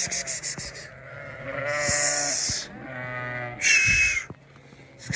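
Sheep bleating: several drawn-out calls one after another, the highest and loudest about four seconds in.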